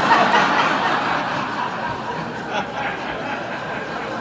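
An audience laughing together, loudest at the start and slowly dying down.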